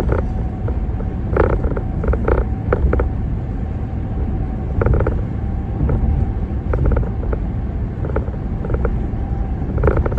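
Road noise inside a moving vehicle: a steady low rumble from tyres and engine, with short creaks and rattles from the cabin every second or two.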